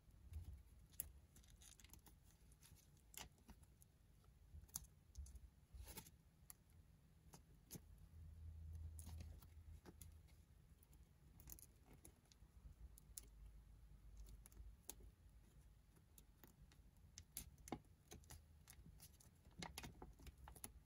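Faint crinkling and scattered soft clicks of origami paper being pinched and folded by fingers, over a faint low hum.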